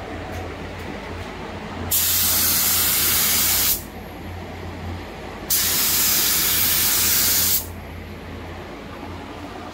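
Gravity-feed spray gun spraying clear coat: two trigger pulls of about two seconds each, a loud hiss of air that starts and stops sharply, over the steady low hum of a ventilation fan.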